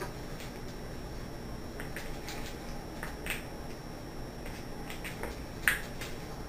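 Clear latex twisting balloon being knotted by hand: a few short squeaks and snaps of the rubber over a faint steady background hiss.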